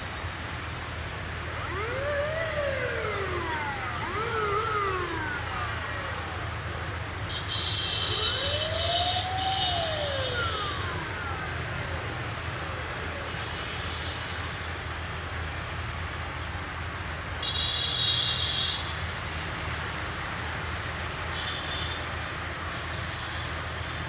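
Steady low hum of a diesel locomotive idling. Over it a siren-like wail rises and falls several times in the first half, and a shrill high-pitched sound comes twice, about eight and eighteen seconds in, the second the loudest moment.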